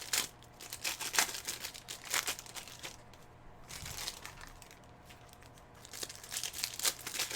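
Crinkling and tearing of trading-card pack wrappers being opened by hand, in irregular short crackles with a brief lull about three seconds in.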